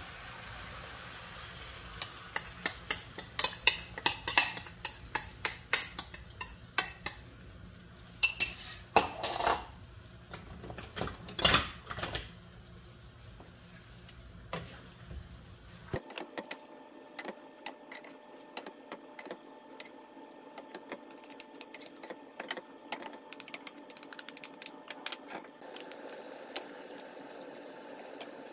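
Cooking utensils clattering, tapping and scraping against a non-stick frying pan as glass noodles are stirred and tossed with sauce. There are many sharp clicks in the first half. About halfway through, after a cut, they give way to lighter, scattered taps and scraping from a wooden spoon stirring the noodles.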